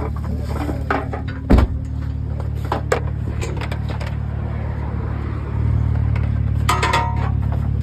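Vehicle engine idling steadily under a run of knocks and clanks from scrap being pulled out and handled, with one heavy thump about one and a half seconds in. The engine gets louder about five and a half seconds in, and a short metallic squeal follows near the end.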